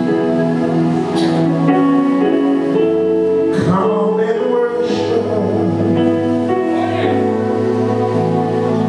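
Church music: long held chords, a deep bass note coming in about halfway through, and a few sharp percussion hits.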